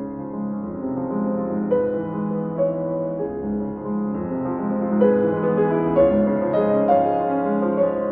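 Instrumental background music led by piano, a run of changing notes over a steady bass line.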